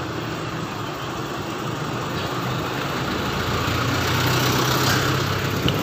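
A motor vehicle engine running with a steady low hum, growing louder from about four seconds in.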